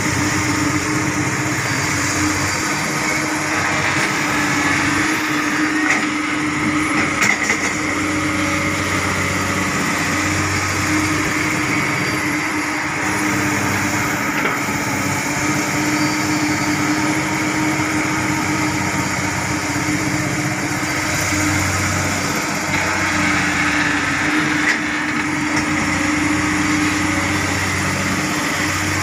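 Komatsu hydraulic crawler excavator's diesel engine running steadily while it digs and swings soil, its deeper note swelling and easing every several seconds as the work loads it. A few light knocks.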